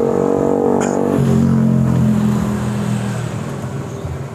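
A motor vehicle engine running, its hum stepping down in pitch just after a second in and fading after about three seconds. A light click about a second in.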